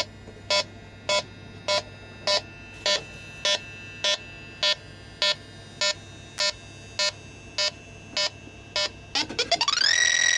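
An electronic refrigerant leak detector ticks with short, even beeps, a little under two a second, its idle rate while it senses no gas. About nine seconds in the beeps speed up and run into a continuous rising, then steady, alarm tone, the way such detectors signal refrigerant.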